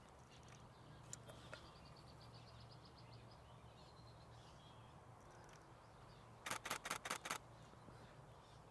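A burst of about six shutter clicks from a Nikon Z6 II mirrorless camera firing continuously, at roughly six a second, about six and a half seconds in. Faint bird calls, including a short high trill about two seconds in.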